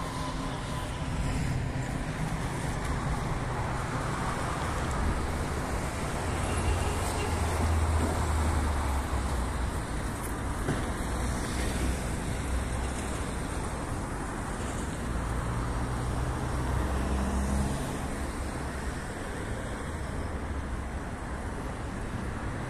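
Scania R 450 truck's six-cylinder diesel engine running with its bay open, a steady low drone that swells twice, about six to nine seconds in and again around sixteen to eighteen seconds.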